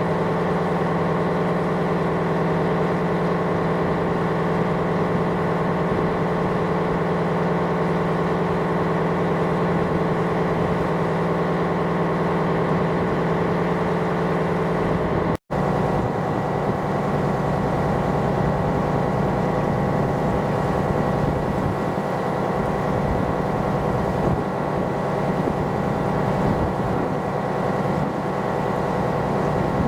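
A tanker's engine machinery running with a steady, unchanging drone, broken once about halfway by a brief cut to silence.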